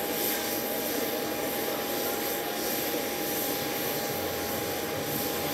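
Steady jet roar from a Su-30MKM fighter's twin AL-31FP turbofans at a distance, with a steady whine running through it.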